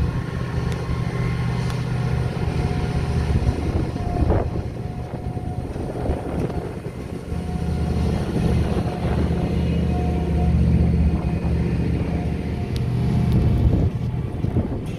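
Diesel engines of on-track railway maintenance machines, a tamper and a VolkerRail vehicle, running as they pass at low speed. The low engine hum swells about halfway through and drops near the end, with a faint thin whine over it.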